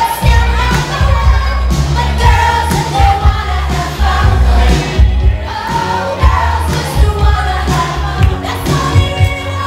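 A recorded song with a sung melody over a steady drum beat and heavy bass.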